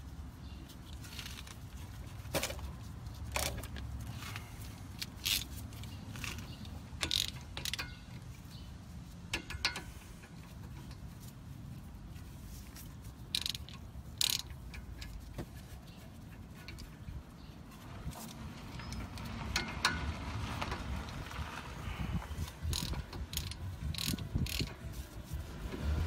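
Socket ratchet clicking in short, irregular runs as the brake caliper bolts are tightened, the clicks coming thicker near the end.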